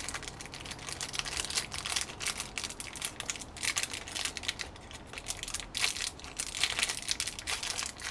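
Clear plastic parts bag crinkling and rustling in the hands, handled to take out a new brass carburettor main jet, with irregular crackles throughout.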